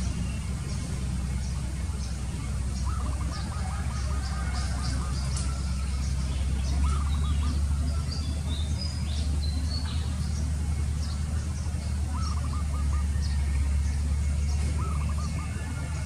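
Birds calling in short runs of quick repeated notes several times, with faint high chirps, over a steady low rumble.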